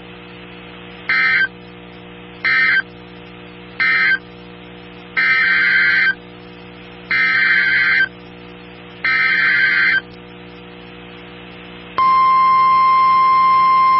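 Emergency Alert System data tones on NOAA Weather Radio: three short bursts of buzzing digital data close the previous warning, then three longer bursts send the header of the next one. About twelve seconds in, a loud steady alert tone begins. A steady low hum runs underneath.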